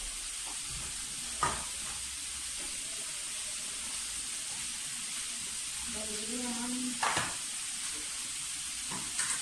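Food frying in a small pan on the stove, a steady sizzling hiss, as it is stirred; a utensil clicks sharply against the pan about a second and a half in and again about seven seconds in. A brief voice sounds just before the second click.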